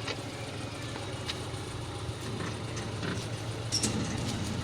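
Steady low hum of an idling vehicle engine, with a few faint clicks over it.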